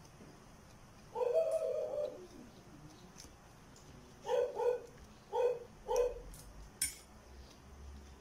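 A dog barking: one longer drawn-out call about a second in, then short barks in quick pairs from about four seconds in.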